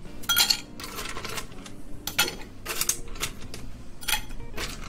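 Ice cubes clinking as they are picked from a stainless steel ice bucket with metal tongs and dropped into a tall glass: a string of separate sharp clinks, topping the glass up with more ice.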